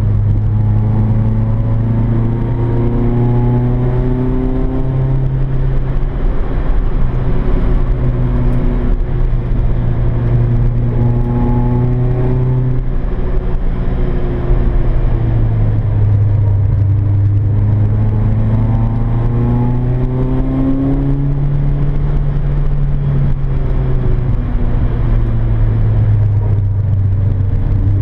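Peugeot 106's four-cylinder engine heard from inside the cabin, driven hard on track: the revs climb and drop back again and again through the gears.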